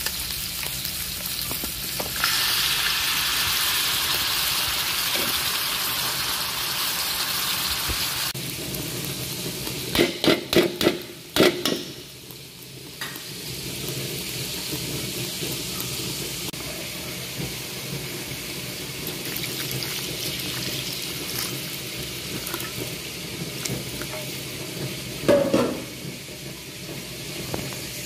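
Beef cubes sizzling in hot oil in a metal pan as a spatula stirs them. About ten seconds in come a few sharp knocks of metal on the pan. After that the sizzle settles to a softer hiss once tomato sauce is in the pan.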